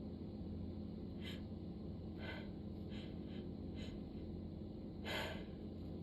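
A person's short sniffs and sharp breaths in, about six of them, the last, about five seconds in, the loudest, during a sneezing fit.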